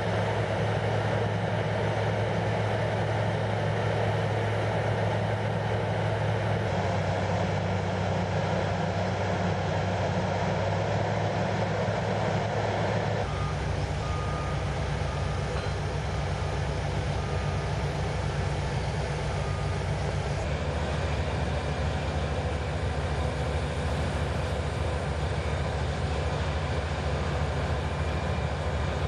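Steady drone of heavy construction machinery running at a crane lift, with a low engine hum under a broad noise; the sound changes in character about halfway through.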